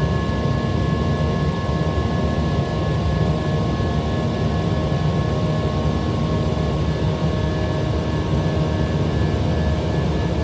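Steady cabin noise of a jet aircraft in its climb after takeoff: an even rumble of engines and rushing air, with faint steady tones above it.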